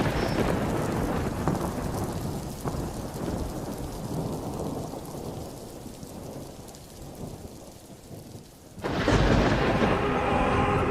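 Thunder and rain fading down. About nine seconds in, music starts suddenly.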